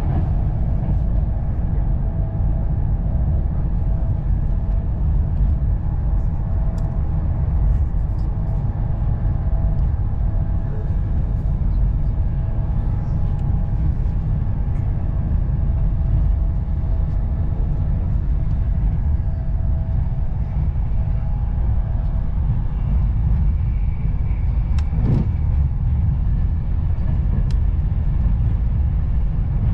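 Passenger train running at speed, heard from inside the carriage: a steady low rumble of wheels on the rails, with a faint steady whine through most of it and a brief knock about 25 seconds in.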